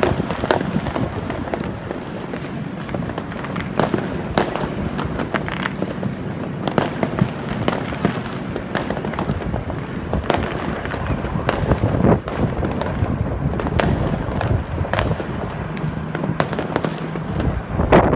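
New Year's fireworks going off without pause: many irregular sharp bangs and crackles overlapping one another.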